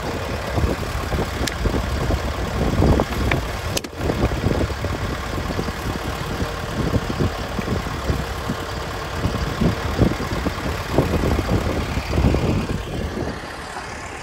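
Mahindra Arjun 605 DI tractor's diesel engine running steadily as it pulls a seed planter through the field. About 13 seconds in the sound drops to a quieter, smoother engine hum.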